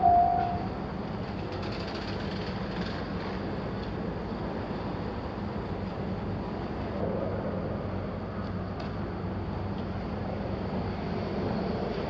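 Japanese railway crossing alarm sounding its pulsing electronic tone, which cuts off about half a second in. A steady low rumble follows.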